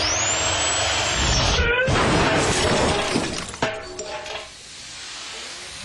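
A loud crash of breaking glass and crunching metal as a car flips over onto its roof, ending with a sharp knock about three and a half seconds in and dying away.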